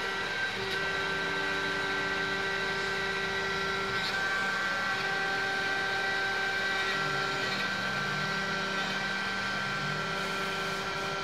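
CNC vertical milling machine cutting into a metal block with a small end mill: a steady machining hum with several held whining tones from the spindle.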